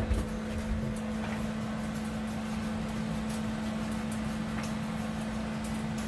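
A steady low electrical or mechanical hum, with a few faint light ticks and knocks over it.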